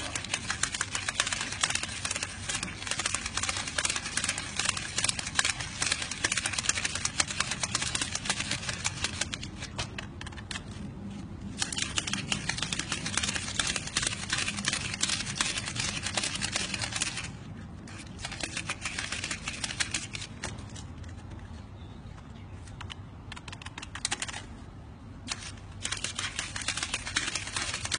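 A stack of paper banknotes being hand-counted at high speed, the notes flicked one after another under the fingers in a rapid stream of crisp paper snaps. It stops briefly a few times, with a longer lull of about two seconds about two-thirds of the way through.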